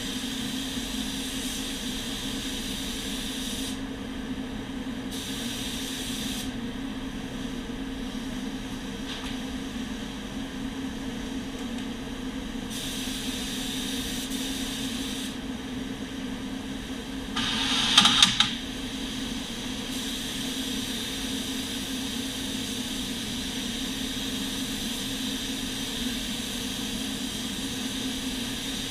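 Gravity-feed paint spray gun hissing in long stretches as the trigger is pulled and released, over the steady hum of a spray booth's ventilation. About 18 seconds in there is a brief, louder rush of air.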